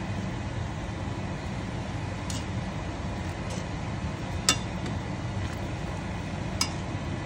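Metal tongs and a metal ladle clinking against a stainless steel pan of simmering noodles, a few sharp clinks with the loudest about halfway through, over a steady low hum.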